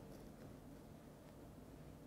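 Near silence, with faint scraping of a metal ice cream scoop dragged through hard-frozen ice cream.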